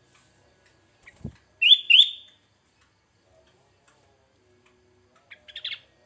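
Sooty-headed bulbul (kutilang) calling: two loud, short whistled notes rising in pitch about a second and a half in, then a quick burst of softer chirps near the end. A low thump comes just before the first notes.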